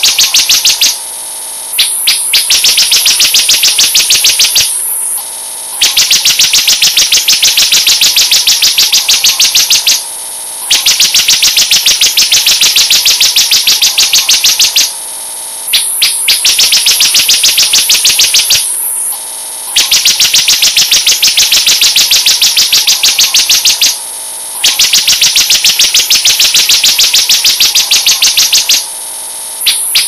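Ciblek (a prinia) song played as a bird-lure recording: loud, very fast, high-pitched drilling trills in stretches of about four seconds, broken by short pauses, over a constant high hiss.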